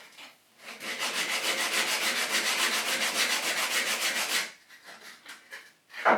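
Coarse sandpaper rubbed quickly back and forth against the edge of a small model railway barrow crossing piece, taking a little off the edge. It runs for about four seconds in rapid strokes, then stops.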